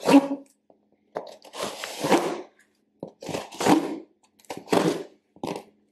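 Scissors blade cutting and scraping along the packing tape of a cardboard box, in about five short bursts with pauses between them.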